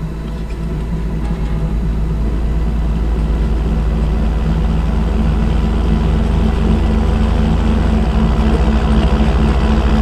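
Heavy engine of harvest machinery, such as a combine harvester or tractor, running steadily. It grows louder over the first couple of seconds, then holds.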